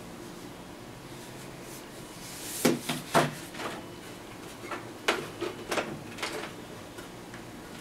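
Handling knocks and clicks: a cylindrical battery pack set down on a wooden table and hands working the plastic case of a 1985 Emerson portable TV. Two sharp knocks come about three seconds in, then a run of smaller clicks around five to six seconds.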